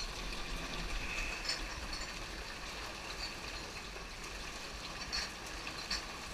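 Flood water rushing steadily, with a few short sharp knocks about a second and a half in and near the end.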